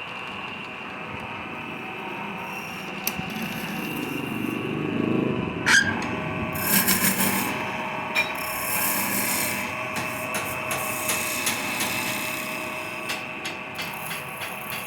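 Wood lathe running with a steady hum while a turning tool scrapes and cuts the spinning wood, with a sharp knock about six seconds in.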